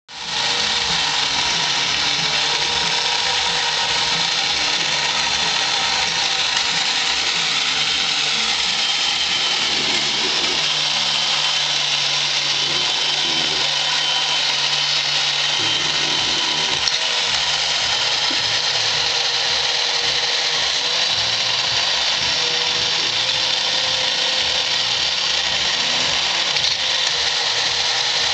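Battery-operated tin toy police motorcycle running: its small electric motor and gears whirring steadily, starting up right at the beginning.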